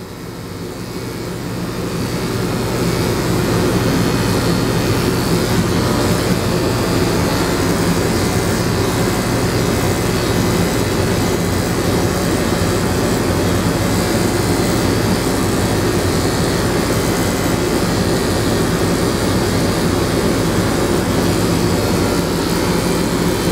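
Electric dog grooming clippers running with a steady motor hum and buzz as they trim the hair on a small dog's face, growing louder over the first few seconds and then holding steady.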